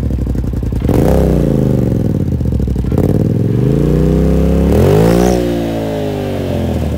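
2017 Polaris RZR XP4 Turbo's turbocharged twin-cylinder engine, breathing through an RJWC APX/AL dual-canister exhaust with its turn-down tips removed and still on the stock tune, revved in three throttle blips. The third blip, about five seconds in, is the longest and highest. After each blip the engine drops back toward idle.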